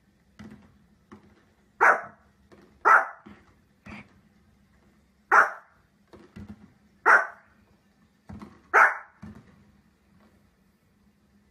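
A small fluffy dog barking: five loud, sharp barks a second or two apart, with fainter short sounds between them.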